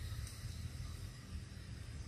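Outdoor ambience: a low, uneven rumble with a faint steady hiss above it.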